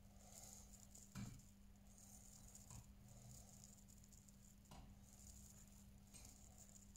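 Faint, occasional knocks of a stonemason working on sandstone, the clearest about a second in, with two softer ones later, over quiet background hum.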